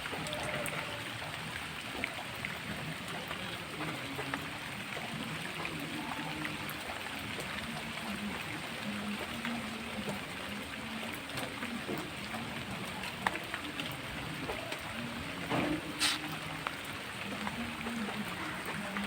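Steady rain falling in an even, dense patter, with faint indistinct voices underneath and one brief louder sound near the end.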